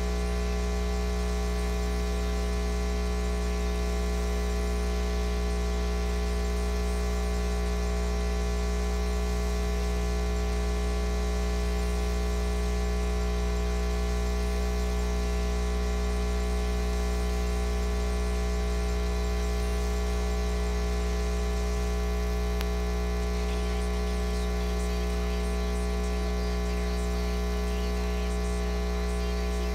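Steady electrical hum, low and buzzing with many overtones, unchanging in level.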